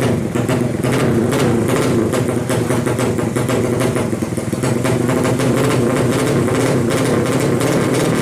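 Modified Yamaha Alfa two-stroke motorcycle engine, bored to 116 cc with a 35 mm carburettor, running at low speed. Its pitch wavers slightly up and down rather than holding a steady idle.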